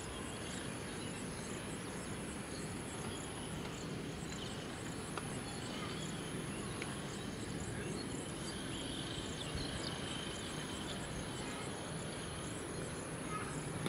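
Steady open-air ambience: an even background hiss with a thin, high, steady whine and faint, regularly repeating high chirps, typical of insects in grass.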